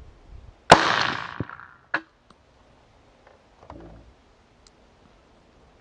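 A single rifle shot from a Franklin Armory F17-L AR-15 chambered in .17 Winchester Super Magnum rimfire: a sharp crack under a second in whose report fades over about a second. A shorter sharp crack follows about a second later.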